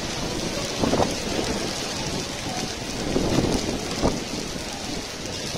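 Heavy rain pouring onto wet stone paving, a steady downpour with a few short low thumps mixed in.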